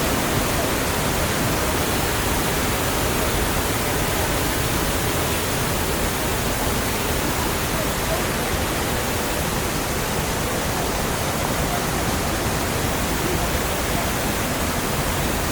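Waterfall pouring, a steady rushing noise that holds even throughout.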